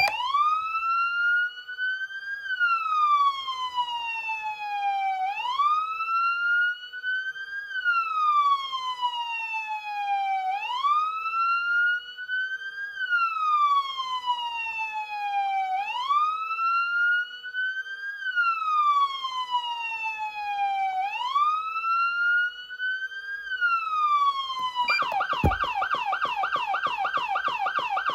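Federal Signal Platinum SSP3000B electronic siren amplifier sounding a wail: a loud tone that rises quickly, then falls slowly, each cycle taking about five seconds. Near the end it switches to a fast yelp, the pitch warbling several times a second.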